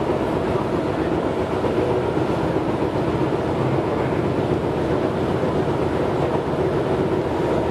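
Tobu 6050 series electric train running at speed, heard inside the passenger cabin: a steady rumble of wheels on the rails with an even level throughout.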